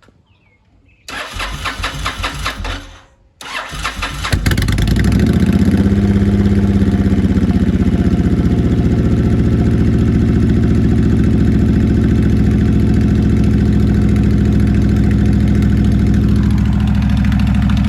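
A 2008 Honda VTX1300C V-twin with a Vance & Hines exhaust is cold-started on the electric starter. It cranks for about two seconds and stops, then cranks again and fires about four seconds in. It settles into a loud, steady idle on choke, which drops slightly near the end.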